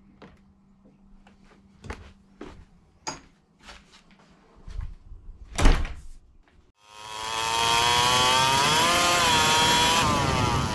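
A few scattered knocks and clicks, then, about seven seconds in, a small two-stroke motorized-bicycle engine comes in loud. Its pitch dips and rises as the throttle is worked.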